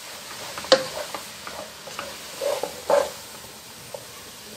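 Grated carrots frying in ghee in a nonstick pot, sizzling as a spatula stirs and turns them, at the frying stage of carrot halwa. A few sharp clacks of the spatula on the pot stand out, loudest about a second in and again near three seconds.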